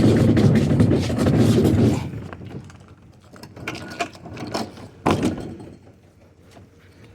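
A scrap appliance being dragged and handled: a loud scraping rumble for about two seconds, then a few separate knocks.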